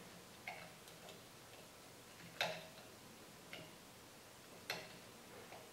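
Faint, sparse metallic clicks of a small screwdriver working the screw in a sewing machine's balance wheel, about five in all, the one about two and a half seconds in the loudest.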